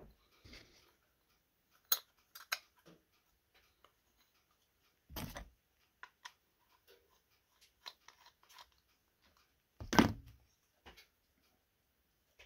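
Light clicks and clatter of small fuel-pump parts being handled and fitted back together by hand on a wooden workbench, with a few short knocks, the loudest about ten seconds in.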